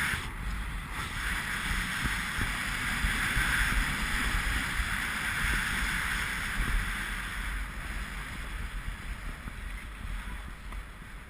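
Wind rushing over an action camera's microphone while riding down packed, groomed snow, with the steady hiss of the snow underfoot; it fades as the rider slows near the end.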